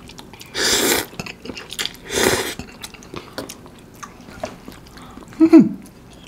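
Curry instant noodles being slurped twice, about a second and a half apart, amid wet chewing and small clicks of chopsticks and a wooden fork. Near the end comes a short hum that falls in pitch, the loudest sound of all.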